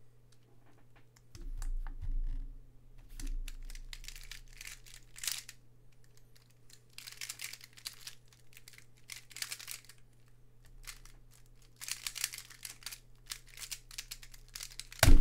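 Square-1 puzzle being turned fast during a speedsolve: flurries of rapid plastic clicking and clacking as its layers twist and slice. A loud sharp thump near the end as the solve finishes.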